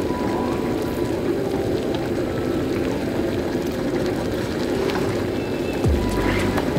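Pot of water at a rolling boil, bubbling steadily while fresh wakame seaweed is blanched in it. A low steady tone comes in near the end.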